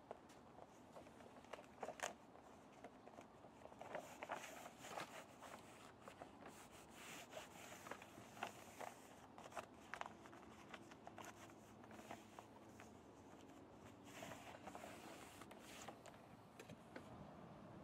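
Faint, scattered rustling and crinkling of a sheet of Moistop E-Z Seal self-adhered flashing as it is pressed and smoothed flat against the window framing by hand.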